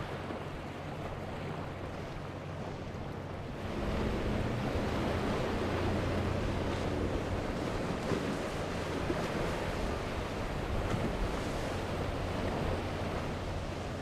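Choppy sea water and wind rushing, with the steady low hum of an outboard-powered boat running underneath. The rush of water and wind gets louder about four seconds in.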